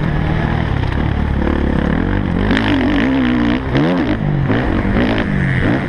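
Motocross bike engine heard from on board, revving up and down as the throttle is worked through the turns. There is a sharp drop and climb in revs about two-thirds of the way in.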